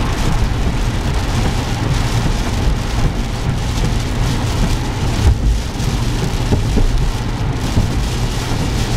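Heavy rain drumming on a car's roof and windshield, heard from inside the cabin, over a steady low rumble of tyres on a wet freeway. There are a few small thumps, one about five seconds in.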